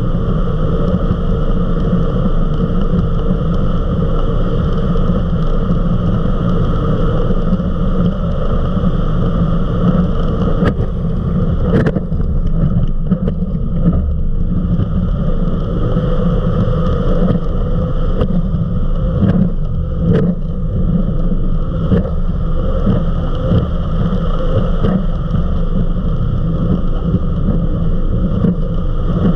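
Eliminator 31 XO Speedster powerboat running flat out at about 70 mph: a steady engine drone mixed with the rush of wind and water. A few sharp knocks come in the middle.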